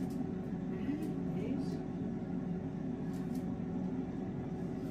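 Air fryer's fan running with a steady, even hum while it cooks a batch of potato chips, with a few faint soft rustles over it.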